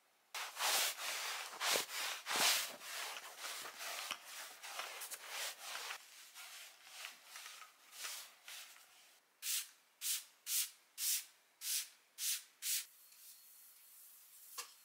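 Sticky lint roller rolled back and forth over fabric sofa cushions, a rasping rub with each stroke. The strokes come thick and fast at first, then as about seven even strokes, roughly two a second, before it goes faint.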